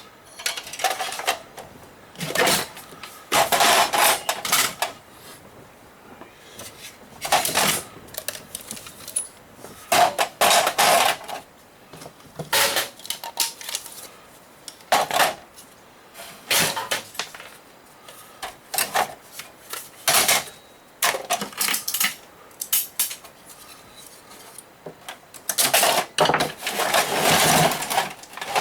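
Metal parts of a desktop computer tower clattering and clinking as it is taken apart and the pieces are pulled out and set down. The clatters come in irregular bunches every second or two.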